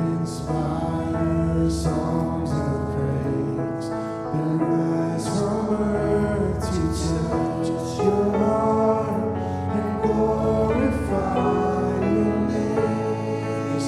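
Worship song sung by a group of singers with instrumental accompaniment, held notes changing every second or two.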